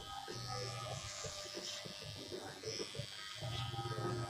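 Electric hair clippers buzzing as they cut short hair at the back of the neck, the hum swelling louder in stretches as the blade works the hair.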